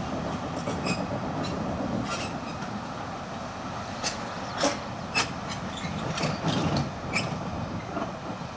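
San Francisco Muni PCC streetcar 1159 rolling slowly with a low rumble, and sharp metallic clicks and clacks scattered through it, the loudest a little after the middle.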